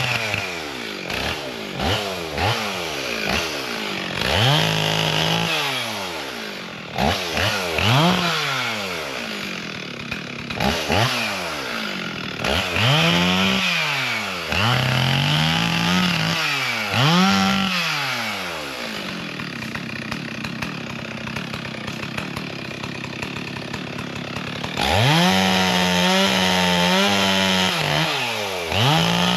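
Chainsaw engine revving up and dropping back over and over while cutting wood, one rev every second or two. For several seconds in the middle it runs lower and rougher, then near the end it jumps to a high steady speed.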